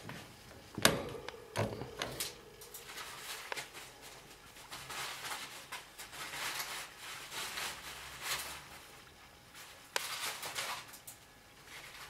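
Rustling and crinkling of torn paper bedding with small scratches as a female degu shifts in her nest box, broken by a sharp knock about a second in, the loudest sound, and another near the end.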